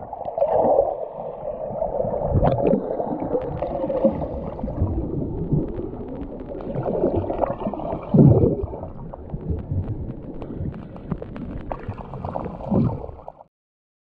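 Swimmers' freestyle strokes heard from underwater: muffled churning, gurgling and bubble rushes, with repeated low thumps as arms and legs break the water. It cuts off suddenly near the end.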